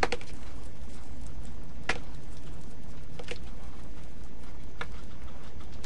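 Raw chicken drumsticks handled with gloved hands in a stainless steel bowl: a few light clicks and knocks, about four, as the pieces are turned against the metal. A steady low hum runs underneath.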